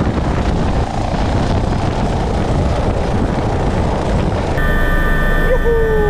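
Bo 105 twin-turbine helicopter lifting off, its rotor and engines heard from outside as a loud, steady rushing noise. About four and a half seconds in, the sound switches to inside the cockpit, where the turbines' steady high whine is heard over the rotor.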